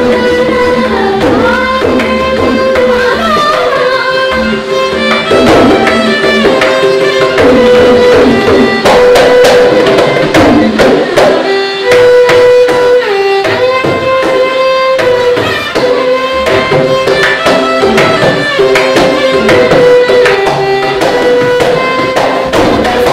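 Odissi dance accompaniment in raga Hamsadhwani: violin playing a melody of held and sliding notes over a steady rhythm of mardala drum strokes.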